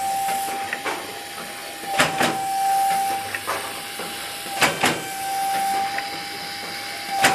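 Soap packaging and labelling machine running in a steady cycle: a pair of sharp clacks about every two and a half seconds, over a continuous hiss and a steady high-pitched hum that cuts out briefly in each cycle.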